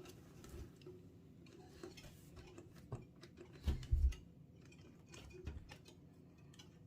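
Scattered light clicks and knocks of an electric hand mixer and bowl being handled, with two low thumps about four seconds in; the mixer's motor is not yet running.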